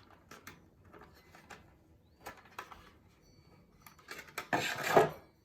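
Handling of a wireless-headphones box and its packaging: scattered small clicks and taps, then a brief loud rustle near the end.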